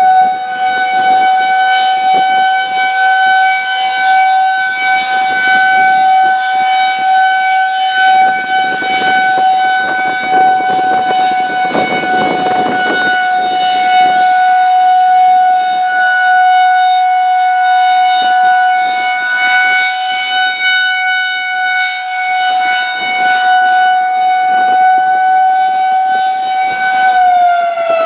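Federal Signal 2001-130 electromechanical rotating outdoor warning siren sounding a steady single tone, the Alert signal. Just before the end the pitch starts to fall. Wind buffets the microphone underneath, most heavily around the middle.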